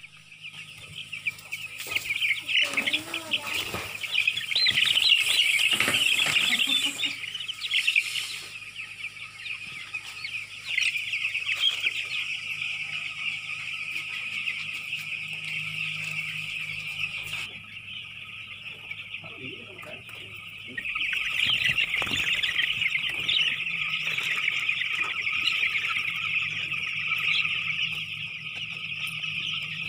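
A large flock of young broiler chicks peeping together: a dense, continuous chorus of high cheeps. It swells louder for a few seconds near the start and again from about two-thirds of the way through.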